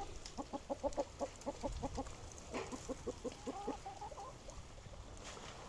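Chickens clucking, fairly faint: a quick run of short clucks, about five a second, then a few longer calls that rise and fall in pitch.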